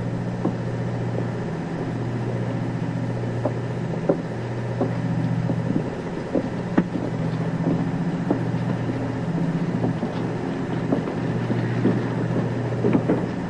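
Steady low machinery hum from a moored patrol boat, with scattered light clicks and knocks over it.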